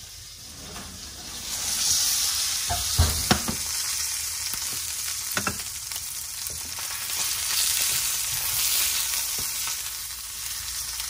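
Ribeye steak sizzling in oil in a hot stainless steel skillet fresh from under the broiler; the sizzle swells about two seconds in and carries on steadily. A couple of sharp knocks about three seconds in, and another a little later.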